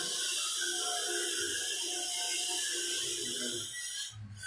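Background music: held melodic notes over a steady hiss, with a brief dip near the end.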